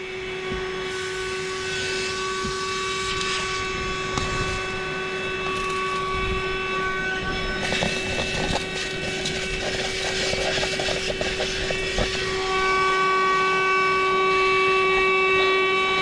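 CherylonCar 150 W, 12-volt corded handheld car vacuum running: a steady motor whine over the rush of air through the hose, with scattered crackles about halfway through. It gets louder about three quarters of the way in.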